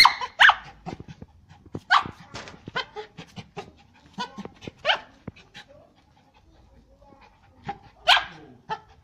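Red toy poodle giving short, high, sharp barks in a broken string, loudest near the start and again at about two, five and eight seconds in, with light clicks in between.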